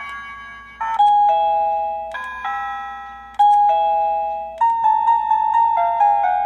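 Tektalk wireless doorbell receiver playing electronic chime tunes as the tones are cycled through. A few slow ringing notes that each fade away, then a different, quicker melody starts about four and a half seconds in.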